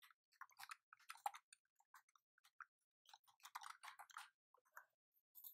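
Faint, irregular clicking of computer keyboard keys being typed, in two runs with a pause of about a second and a half between them.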